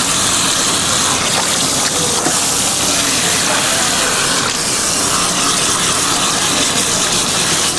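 Water running and splashing in a steady rush.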